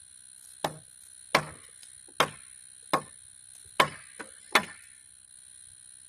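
Hammer blows on a wooden bench swing being taken apart to loosen its boards: six sharp strikes, about one every three-quarters of a second, with a faint tap between the last two.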